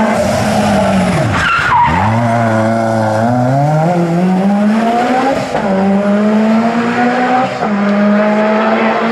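Rally car engine under hard driving: the revs fall sharply as the driver lifts off, with a brief tyre squeal, then the engine pulls hard again through the gears, the pitch climbing and dropping back at two upshifts.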